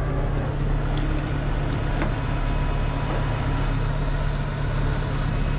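Heavy rotator tow truck's diesel engine running steadily, a low, even drone.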